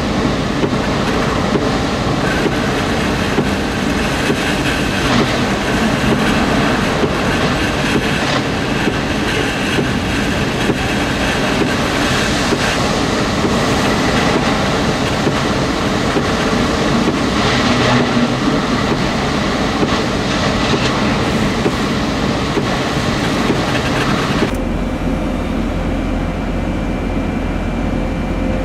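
Hurricane-force wind and rain blowing hard against a vehicle, a loud unbroken rush heard from inside the cab. About 25 s in it gives way abruptly to a steadier low hum with a faint steady tone.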